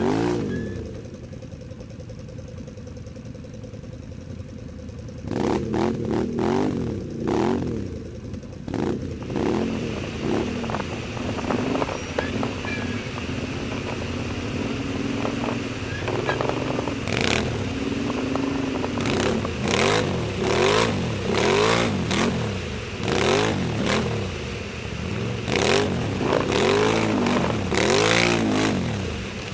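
ATV engine running at low revs, then revving up and down over and over as it pushes along a rough, overgrown trail. Branches and tall grass swish and slap against the machine again and again, most often in the second half.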